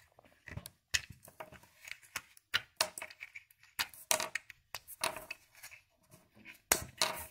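Small hard-plastic model-kit parts, tank road wheels and sprockets, clicking and clattering as they are picked up and set down on the paper instruction sheet, in irregular light taps.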